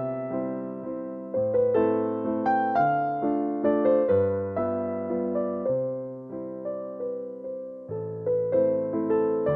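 Background music: a piano-like keyboard playing a slow, gentle melody over chords, each note struck and fading away.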